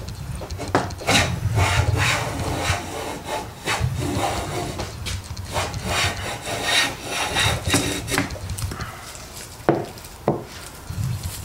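Infill smoothing plane cutting shavings from the edge of a board in repeated strokes, a rasping hiss of the iron through the wood. The strokes die away near the end, followed by two sharp knocks.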